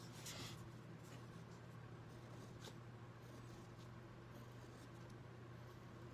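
Faint scratching of a fine-tip ink pen drawing short strokes on watercolour paper, the clearest stroke just after the start and another near the middle, over a steady low hum.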